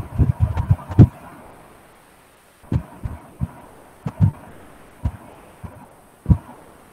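Dull, low thumps at irregular intervals: a quick cluster in the first second, then single knocks every second or so, heard over a video-call connection with a faint steady hum.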